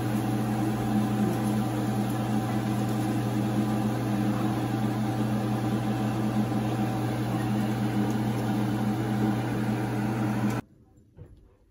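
Steady low hum of a kitchen exhaust fan over donuts frying in a pan of oil, with the oil sizzling. It all cuts off suddenly near the end.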